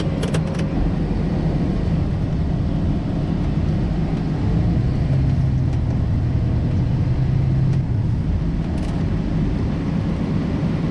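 Combine harvester running while harvesting corn, a steady low drone. A deeper hum grows stronger around the middle, and a few light clicks come just after the start and near the end.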